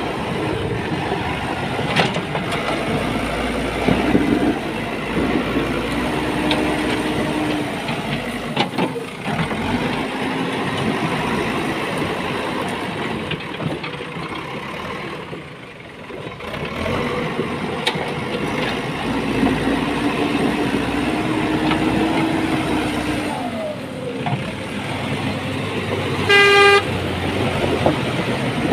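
JCB 3DX backhoe loader at work: its diesel engine runs under load with a steady din, a held whine comes in twice, and a few sharp knocks break through. Near the end a horn beeps once, briefly.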